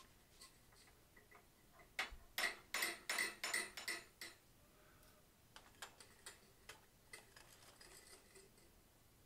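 A hammer striking a hand-held fuller against red-hot steel clamped in a vise, fullering the jaw of a forged bear's head: a quick run of about seven sharp metallic blows a couple of seconds in, then a few lighter taps.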